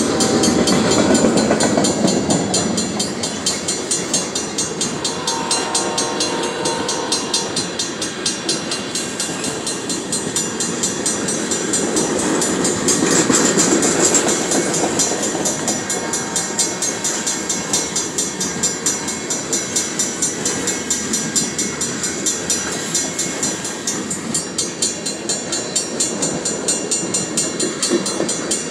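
Empty wind-turbine flatcars of a freight train rolling through a grade crossing: steady wheel-on-rail noise with rhythmic clacking as each truck crosses the joints, and a crossing bell ringing quickly and steadily. A brief held tone sounds about five seconds in.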